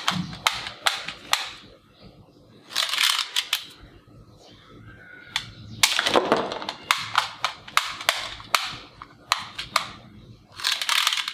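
Plastic toy AK-47 rifle firing: several short bursts of rapid clicking toy gunfire, with single sharp clicks between them.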